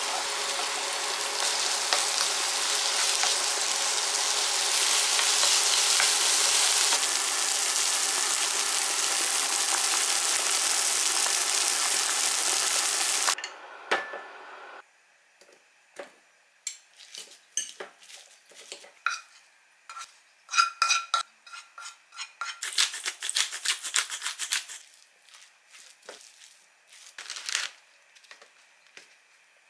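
For about the first half, a frying pan of diced onion and carrot sizzles in butter next to a pot of potatoes at a rolling boil, a loud steady hiss that stops suddenly. Then a wooden spoon scrapes and clinks in a glass bowl as the mashed potato mixture is stirred. A pepper grinder gives a fast run of grinding clicks about three-quarters of the way through.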